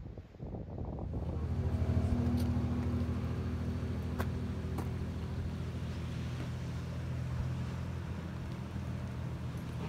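A motor vehicle engine running at idle: a steady low hum that comes in about a second in. A faint wind haze and a couple of light clicks lie under it.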